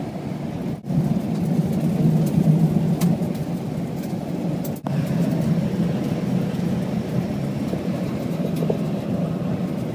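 Steady engine and road noise of a moving vehicle, heard from inside the cabin, a low, even rumble that cuts out briefly twice.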